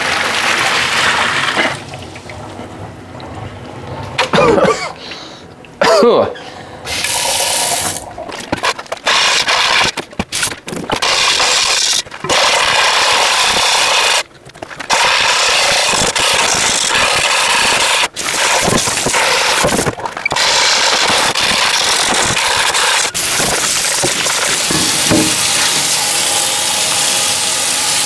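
Liquid poured from an enamelled cast-iron pot splashing into a stainless-steel sink, then long stretches of hissing scrubbing and running tap water inside the pot as baked-on carbon is worked off the enamel. The sound breaks off abruptly several times.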